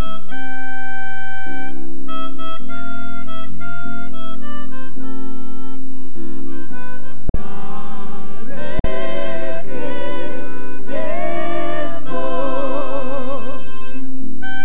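Harmonica played into a microphone, a melody of held notes over a backing with a low bass line. In the second half the notes waver with vibrato, and the sound drops out for an instant twice a little past halfway.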